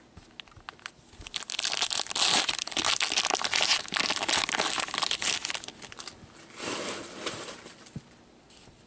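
A trading card pack wrapper crinkling and being torn open by hand, loudest for about four seconds from just over a second in, with a shorter burst of crinkling near the end.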